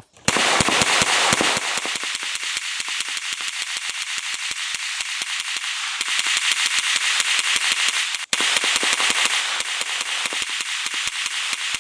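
Tippmann .22 LR Gatling gun firing a long, continuous string of rapid shots at around ten a second as it is cranked, with one brief break a little past eight seconds in.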